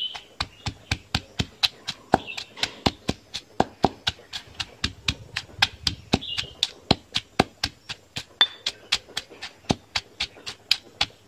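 Stone pestle pounding in a granite mortar, an even run of about four strikes a second, crushing shallots into dried-chili curry paste.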